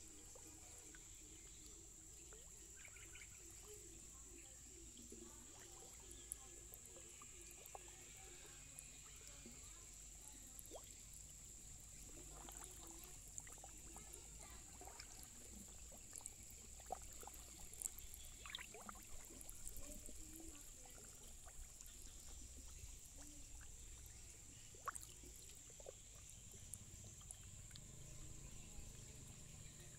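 Near silence: faint outdoor ambience with a steady high-pitched hiss and scattered faint ticks and chirps.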